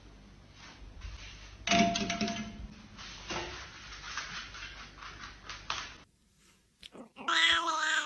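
Scattered light taps and scuffles on a wooden floor with a short louder sound about two seconds in. Near the end a cat meows: one drawn-out call falling in pitch.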